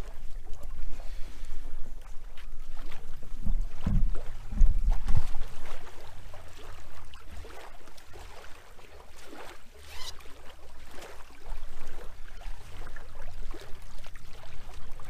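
Shallow lake water splashing and sloshing as a pike is released from a landing net and kicks away, then the net is worked through the water. Wind buffets the microphone in low rumbles around four to five seconds in.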